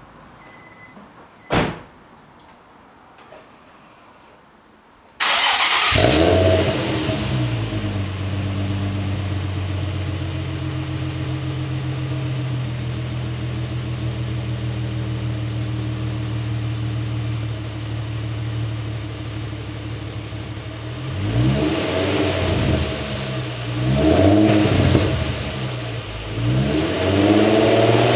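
Nissan 350Z's 3.5-litre V6 breathing through a Buddy Club aftermarket single exhaust. About five seconds in it starts abruptly and runs a fast idle that settles into a steady idle, and near the end it is revved three times in short blips. A single sharp thump comes before the start.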